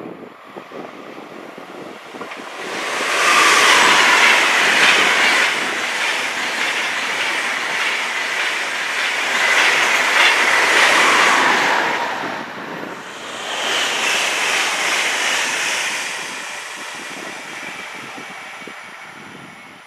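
ICE high-speed electric train passing close by at speed: a rush of wheel and air noise with some clickety-clack that swells about three seconds in, stays loud with a short dip partway through, then fades over the last few seconds.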